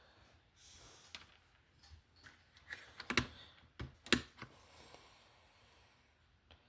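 Light clicks and taps of small metal tools and parts as a hub is set onto a slot car's rear axle with a hub press, the two loudest clicks about three and four seconds in.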